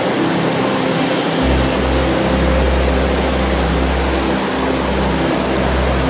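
Waterfall and river rapids rushing, a steady loud roar of water. A deep low rumble joins it about a second and a half in.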